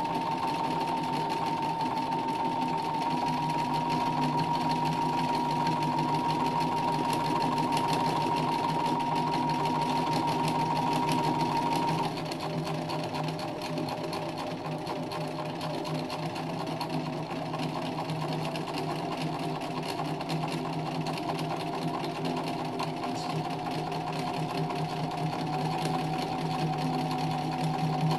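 Domestic sewing machine stitching continuously for free-motion embroidery, the needle working through hooped fabric. Its motor whine holds steady at speed, then drops to a lower pitch and slower stitching about twelve seconds in, and slowly climbs again toward the end.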